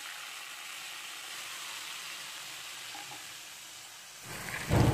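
Hot cooking oil sizzling steadily in a non-stick wok, the oil left after browning onions. Near the end the sizzle swells louder, with a low thump.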